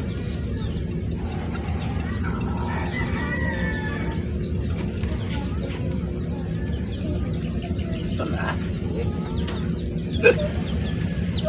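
Chickens clucking and a rooster crowing, with many short chirping calls, over a steady low hum; one short loud call stands out near the end.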